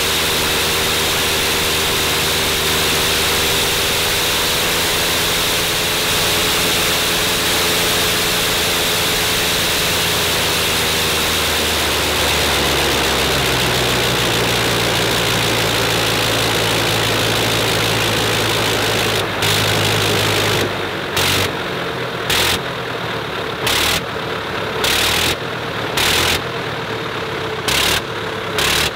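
Sopwith Snipe's rotary engine running on the ground, steady at first with a shift in engine speed partway through. From about two-thirds of the way in, the power cuts in and out in repeated bursts about once a second, typical of a rotary engine being controlled with its ignition blip switch.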